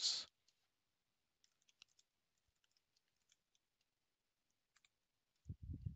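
Faint computer-keyboard typing: scattered soft key clicks. A brief low muffled sound comes near the end.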